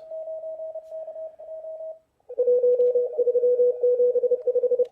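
Morse code (CW) signals from a ham radio receiver, played through laptop speakers. A fainter, higher-pitched station keys for about two seconds, then after a brief pause a louder, lower-pitched station sends.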